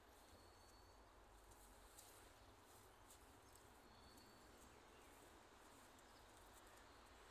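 Near silence: faint outdoor background with a couple of short, faint high chirps.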